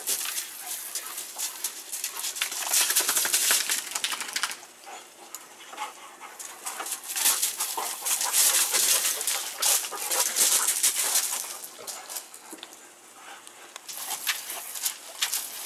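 Oscillating lawn sprinkler spraying water onto gravel, with a German Shorthaired Pointer scrabbling on the wet gravel and snapping at the spray. The hiss and patter swell twice and ease off in between.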